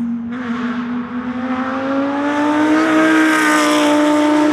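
Audi R8 LMS GT2's 5.2-litre V10 racing engine at high revs under full acceleration, its pitch climbing steadily as it pulls through a gear. It grows louder as the car approaches.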